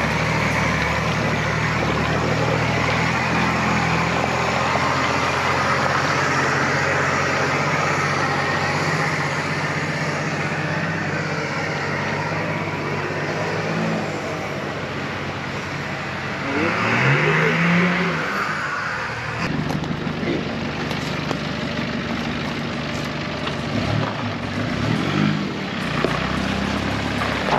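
Four-wheel-drive vehicle's engine running while driving an off-road track, its note rising briefly and louder about two-thirds of the way through.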